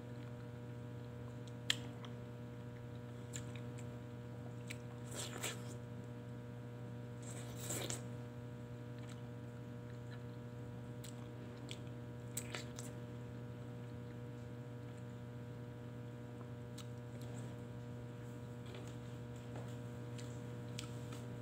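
A person eating soft papaya: a few short bites, chewing and lip smacks, the sharpest about two seconds in, over a steady electrical hum.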